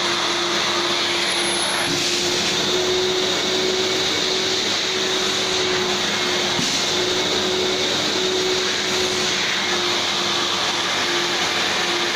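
FVC-80-3M wet and dry vacuum cleaner running steadily: a constant motor hum under an even rush of air.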